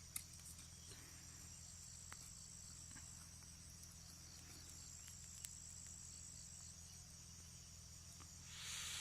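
Faint, steady high-pitched chirring of insects over a low steady hum, with a few small clicks and a brief rustle just before the end.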